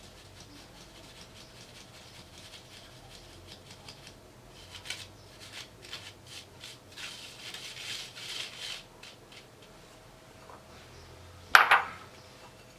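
Icing sugar being sifted through a mesh sieve: soft, irregular rubbing and scratching strokes as its lumps are pushed through, then one sharp knock near the end.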